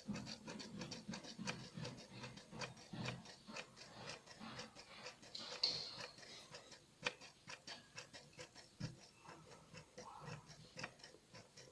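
Hand primer pump on a 1.6 HDi diesel's fuel filter housing being pressed over and over: a faint, irregular series of clicks as fuel is pumped through to bleed air from the fuel system.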